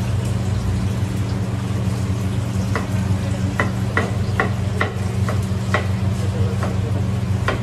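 Commercial kitchen sounds: a steady low machine hum under a frying sizzle, and from about three seconds in a string of around ten sharp metallic clinks of utensils against steel pans and trays.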